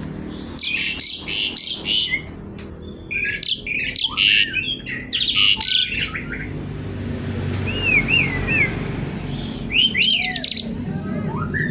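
Asian pied starling singing: bursts of harsh, rattling chatter, broken about two-thirds of the way through by a few clear looping whistles, then more chatter near the end.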